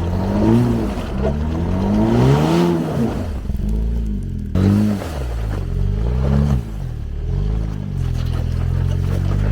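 Off-road vehicle's engine revving up and down over and over, its pitch climbing and falling every second or so as the throttle is worked on the trail.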